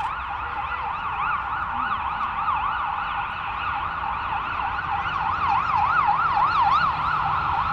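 An emergency-vehicle siren on a fast yelp, its pitch sweeping up and down about three times a second, with a second set of sweeps overlapping it at times.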